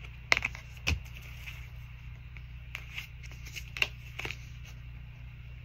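A few light clicks and taps of tarot cards being handled in the hands, scattered and irregular, over a steady low hum.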